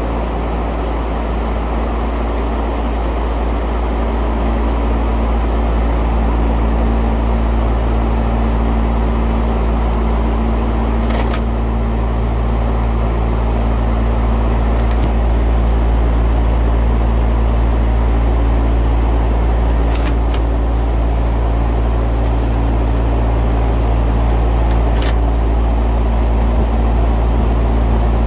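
Steady, loud drone of running refrigeration condenser equipment: a low hum with a broad rush of moving air. A few light clicks of a hand wrench on a metal conduit fitting come through it now and then.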